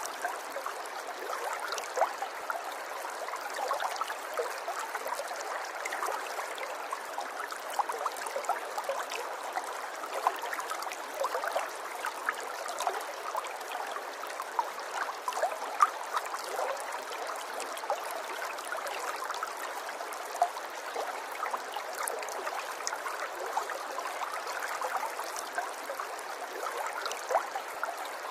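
River water running over stones, a steady babble of small trickles and gurgles with many little splashes.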